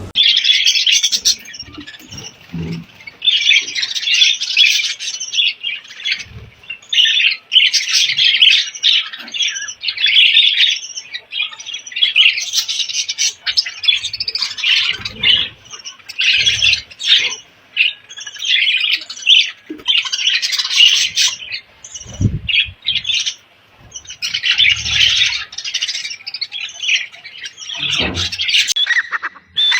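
Indian ringneck parrot (rose-ringed parakeet) screeching in a long series of harsh, shrill calls, each lasting about a second, separated by short pauses.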